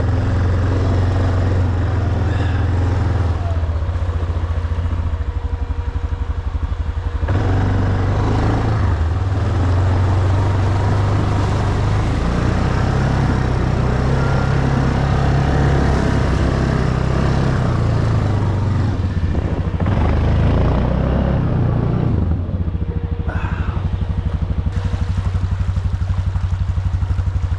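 ATV engine running under load as it drives out over rough ground, its pitch rising and falling with the throttle. There is extra rattle and noise through the middle stretch.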